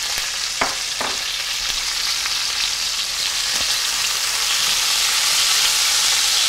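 Onions frying in a hot pan: a steady sizzling hiss that grows a little louder toward the end, with two light clicks about half a second and a second in.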